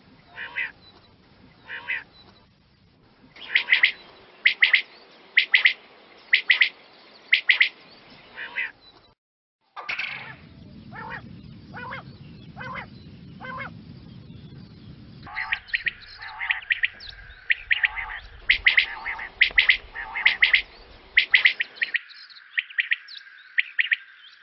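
Common quail calling: short, sharp notes repeated in quick groups about a second apart, from several spliced recordings. A steady high tone runs under the calls in the second half.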